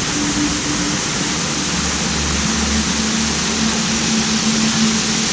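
Waterfall pouring close by: a loud, steady rushing of water.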